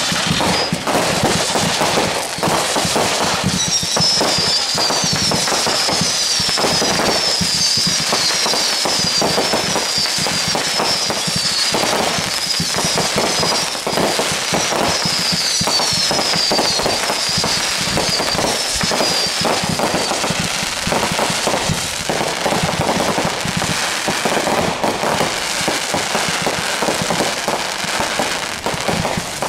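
Fireworks display: a continuous barrage of bangs and crackling from aerial shell bursts. A string of high, falling whistles runs from a few seconds in until about two-thirds of the way through.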